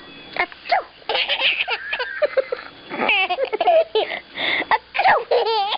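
Baby laughing in a run of short giggles and high, warbling laughs, broken by breathy pauses.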